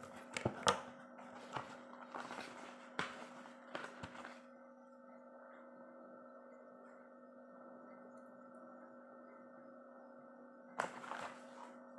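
Cardboard box of drink powder being handled and its lid flap opened: a run of taps and knocks for the first four seconds or so, and another short cluster near the end. A steady electrical hum runs underneath throughout.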